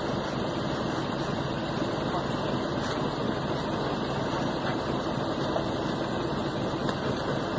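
Heavy truck diesel engine idling steadily, a dense even rumble with no revving or changes.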